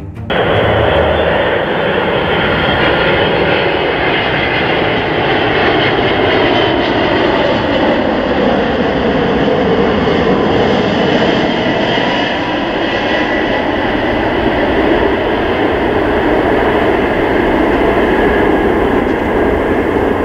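Boeing 747-400 freighter's four jet engines at takeoff thrust during the takeoff run: a loud, steady roar with faint tones that slowly drift in pitch.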